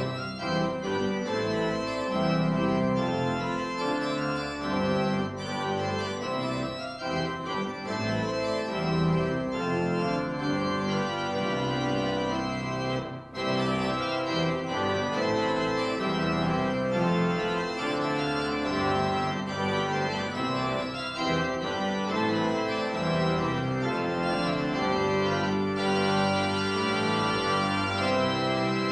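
Organ music, held chords changing in slow succession, with a brief break about thirteen seconds in. This is the postlude after the benediction that closes a church service.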